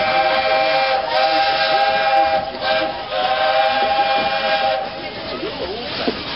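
Steam locomotive whistle blowing two long blasts. Each blast is a chord of several notes, with a short break between them, over the steady noise of the moving train.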